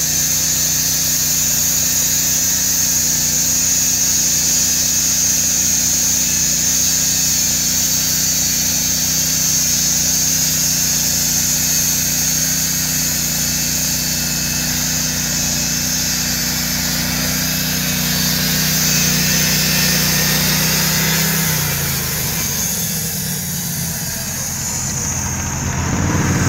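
Norwood portable bandsaw mill running under load, its gas engine holding a steady speed while the band blade saws through a log with a high hiss. About 21 seconds in, the engine drops in pitch as it throttles back toward idle.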